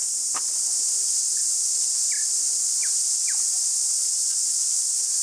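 Steady high-pitched insect chorus, with a few short falling chirps about two to three seconds in.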